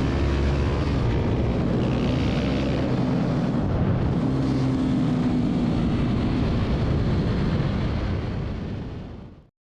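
Husqvarna 701 supermoto's single-cylinder engine running steadily under throttle, its pitch shifting a little, then fading out near the end.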